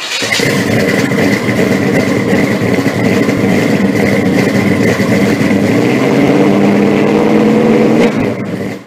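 Car engine running loud and steady, its pitch rising a little in the second half, then fading out near the end.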